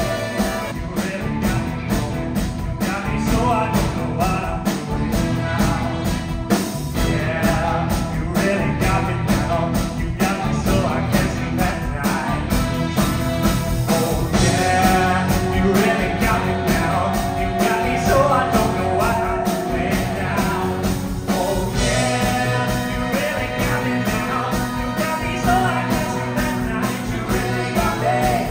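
Live rock-and-roll music: male singers with a band, drums keeping a steady beat.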